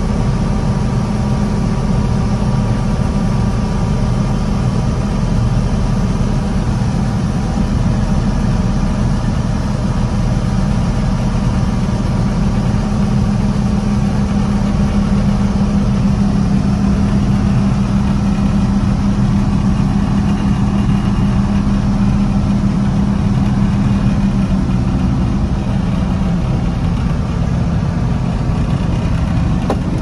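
John Deere 6600 combine running steadily with its unloading auger engaged, emptying soybeans from the grain tank, heard inside the cab. Its note dips slightly near the end.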